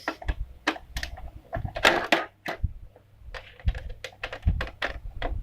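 Irregular clicks and knocks of a plastic toy casing being handled and unscrewed with a screwdriver.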